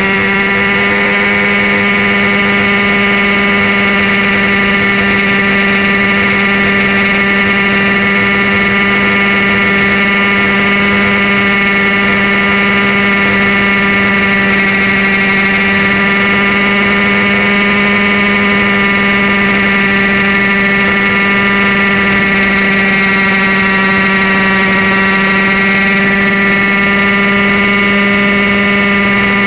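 Nitro glow engine and rotor head of an Airstar International Mongoose RC helicopter running at steady flight speed: a loud, even, high-pitched engine whine. The pitch wavers slightly and recovers in the last third.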